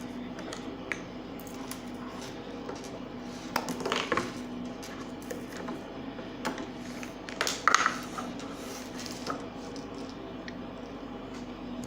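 Slime being squished and pulled in the hands, making small clicks and wet squelches, with two louder bursts of squelching about four and eight seconds in. A steady low hum runs underneath.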